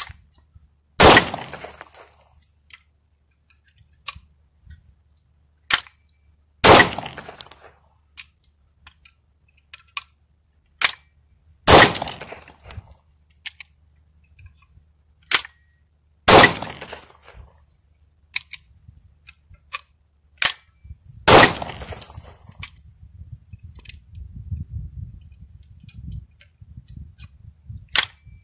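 A home-made 3D-printed pistol being test-fired: five single shots about five seconds apart, each with a short echo. Small clicks of handling the gun come between the shots.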